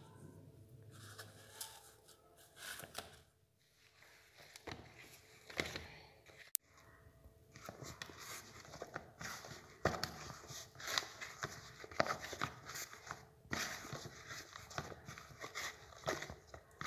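Hand mixing and pressing crumbly flour dough in a plastic bowl: irregular scraping, rubbing and soft squishing of dough against the bowl, busier in the second half, with one sharp click about halfway through.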